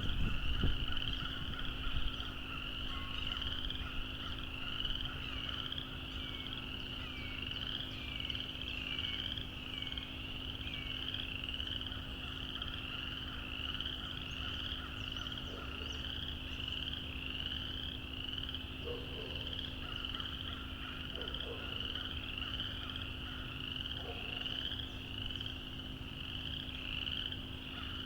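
A dense chorus of frogs: many high calls repeating and overlapping into a continuous shrill, with a lower set of calls dropping in and out. There is some low rumble in the first second or two.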